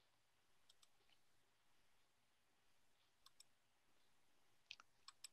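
Near silence broken by a few faint computer mouse clicks, mostly in quick pairs, with more of them near the end.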